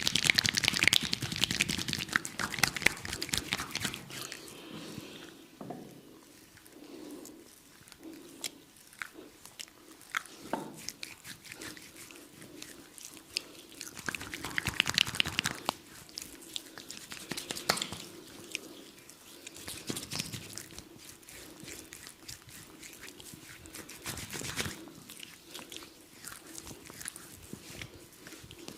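Hands massaging oiled skin and hair at the neck and shoulders, close up. It is a sticky crackling of many small clicks and rubs that comes in bursts, loudest at the start and again about halfway and near the end.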